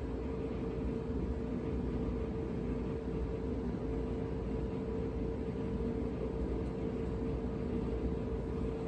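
A steady machine hum: a constant low tone over an even hiss, unchanging throughout.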